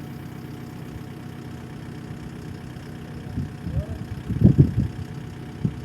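An excavator engine idling steadily, with a few louder irregular low surges in the middle of the stretch.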